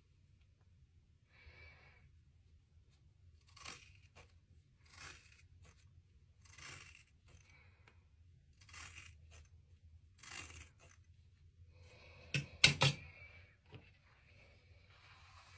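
Hair-cutting scissors snipping through straight hair: about six crisp cuts a second or two apart, then a few sharp clicks, the loudest sound, near the end.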